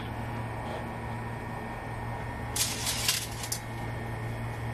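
Steel pan clinking and rattling on a gas stove's grate in a short run of sharp metallic clicks about halfway through, over a steady low hum.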